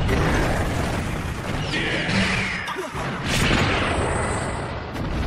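Battle explosion sound effects: a sudden blast at the start, then continuing booms and crashes, with another strong blast about three and a half seconds in.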